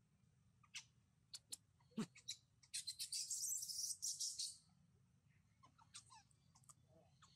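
Newborn baby macaque screaming in distress while its mother pushes it: a few short, high squeaks, then a shrill scream lasting about two seconds, then faint squeaks near the end.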